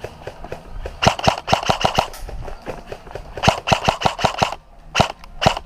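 Airsoft electric rifle (AEG) firing two bursts of rapid shots, each about a second long, then two single shots near the end.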